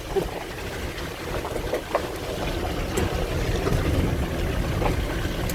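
Car driving on a rough, potholed dirt road, heard from inside: a steady low rumble with scattered small knocks and rattles from the bumps.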